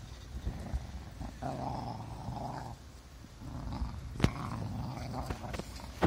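Cardigan Welsh corgis play-growling as they wrestle, in two rough stretches, the first starting about a second and a half in. A single sharp click sounds a little past four seconds in.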